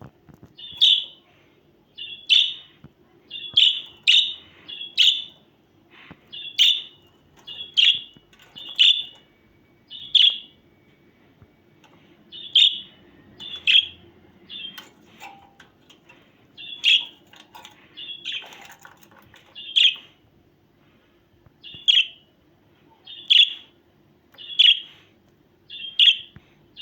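Budgerigar calling over and over: short, high-pitched chirps repeated about once a second.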